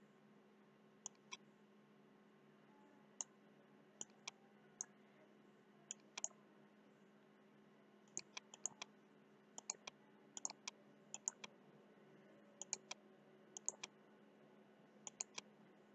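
Computer mouse button clicking: a few dozen short, sharp clicks at an irregular pace, some in quick pairs, over a faint steady hum.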